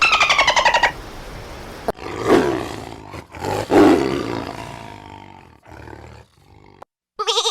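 Big cat roaring: two deep, loud roars about a second and a half apart, trailing off into a series of shorter grunts that fade out. The tail of a rapid pulsed call comes before it, and a wavering bleat starts just before the end.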